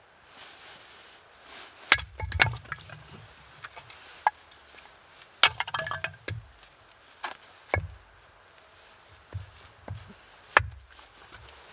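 Wood being chopped and handled: a series of sharp knocks at uneven intervals, some with short clattering between. The loudest blows come about two seconds in and again near the end.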